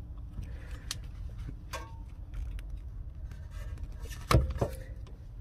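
Needle-nose pliers working against a rear brake caliper piston as it is pushed and twisted back into its bore: a few sharp metallic clicks, the loudest about four seconds in, over a low steady rumble.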